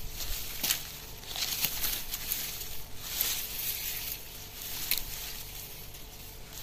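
Dry leaves and grass rustling in short, irregular bursts as the plants are handled.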